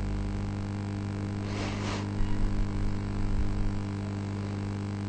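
Steady low hum with a background hiss, and a short noisy swish between one and a half and two seconds in.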